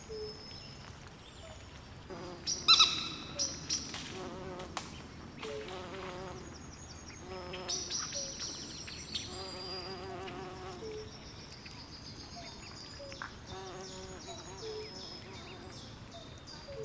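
Night swamp chorus of frogs and insects: high chirps repeating throughout, short low calls every second or two, and several warbling trills. A sharp, loud call about three seconds in stands out.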